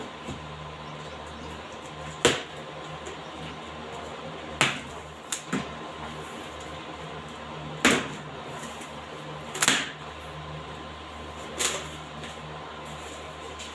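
Electric welding machine setup: a steady hum broken by about six sharp cracks, a second or two apart.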